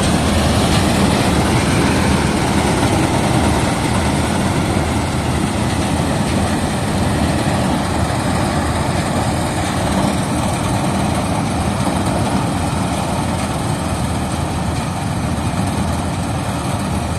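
Swaraj 8100 combine harvester running, a loud, steady mechanical din of engine and machinery without pause.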